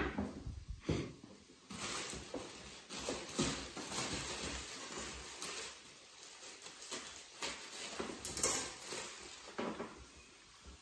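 Quiet kitchen handling sounds: scattered light knocks, taps and rustling of utensils and food at the counter, with no steady sound underneath.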